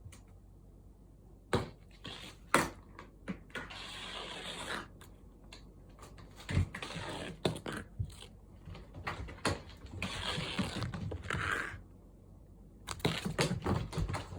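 Cats playing with a Da Bird feather wand toy: scattered sharp knocks and thumps, with several stretches of rustling and scrabbling lasting a second or two.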